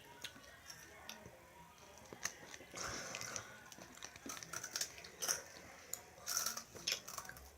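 Faint chewing of sour candy, with scattered soft mouth clicks and small wet crackles.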